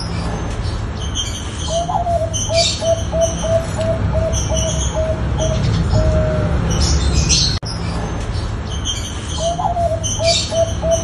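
Perkutut bangkok (zebra dove) cooing: a rising first note, then a quick run of about a dozen short, even coos, then one drawn-out coo. After a sudden brief cut the same phrase starts again. Small birds chirp high above it throughout.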